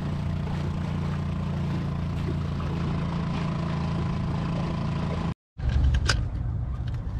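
Small outboard motor on a mini boat running steadily under way, with a low, even hum. It cuts off suddenly a little past five seconds, and a lower steady rumble with one short click follows.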